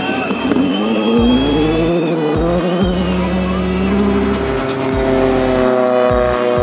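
Rally car engine revving hard, its pitch rising for the first couple of seconds and then holding a high, steady note.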